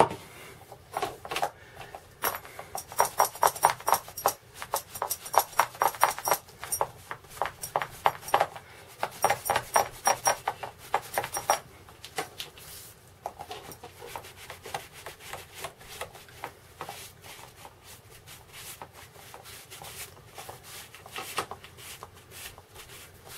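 A cloth rubbed briskly back and forth along a tooled leather dog collar, in quick scraping strokes several a second. The strokes are busiest through the first half, then turn lighter and more scattered.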